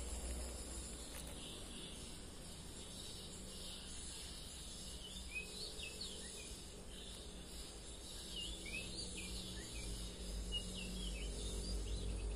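Insects trilling steadily. From about five seconds in, a bird gives short, repeated whistled chirps that rise and fall.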